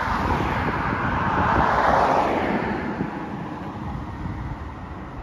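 A car driving past on the road, its tyre and engine noise swelling to a peak about two seconds in, then fading away, over a low wind rumble on the microphone.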